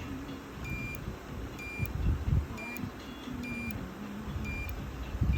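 Short, high electronic beeps at one steady pitch, about one a second, from a tester on a BMW S1000RR clutch switch. Each beep marks the switch closing circuit as it is worked.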